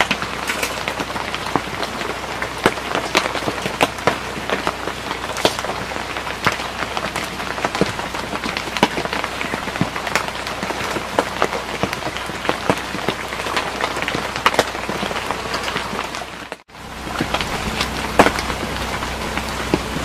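Steady pattering, crackling noise made up of many small ticks, cutting out briefly about three-quarters of the way through.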